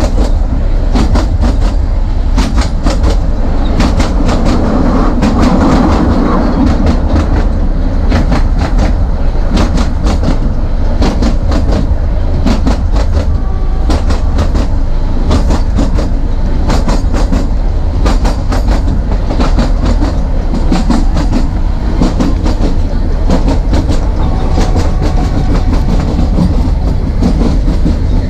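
Narrow-gauge passenger train running, heard on board: wheels clattering over rail joints in many sharp clicks over a steady low rumble.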